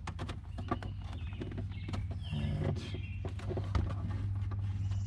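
Light, scattered clicks and knocks of parts being handled, over a steady low hum.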